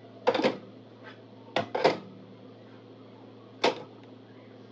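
Cake tins being set down on an oven's wire rack, making short knocks and clinks: two quick pairs in the first two seconds, then one more near the end. A steady low hum runs underneath.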